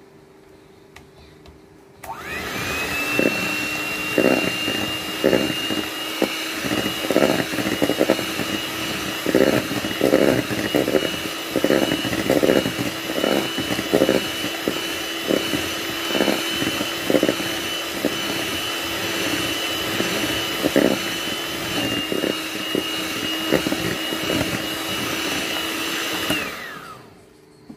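Electric hand mixer running at a steady speed with a constant whine, its twin wire beaters whipping cream in a stainless steel bowl, with repeated knocks of the beaters against the bowl. It switches on about two seconds in and winds down near the end, its pitch falling.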